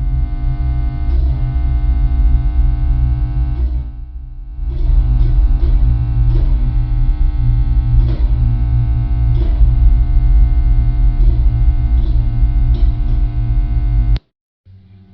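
Distorted electric guitar music, a heavy sustained chord with strong bass and regular strummed accents, dipping briefly about four seconds in and cutting off abruptly near the end.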